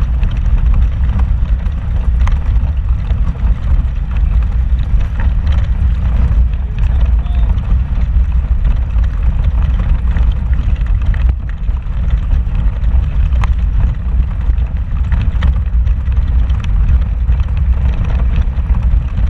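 Vehicle driving slowly over a rocky off-road trail, heard from inside the cab: a steady low engine and road rumble with frequent knocks and rattles as it jolts over the stones.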